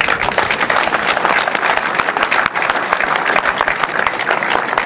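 Crowd applauding, starting abruptly and holding at a steady level.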